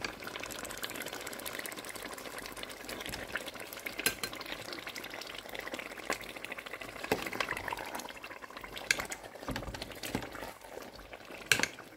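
Nigerian tomato stew with chicken frying and bubbling in oil in a pot, a steady sizzling crackle: the tomato base is properly fried down. A few sharp knocks, such as a spoon against the pot, stand out now and then.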